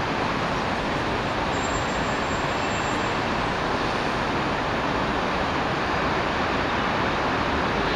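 Steady city street traffic heard from high above: buses, vans and cars blending into one even wash of noise with no single vehicle standing out.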